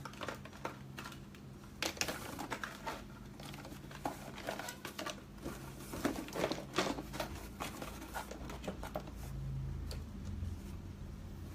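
Hands handling cosmetics and their packaging: irregular crinkling and rustling with scattered small clicks and knocks, over a low steady room hum.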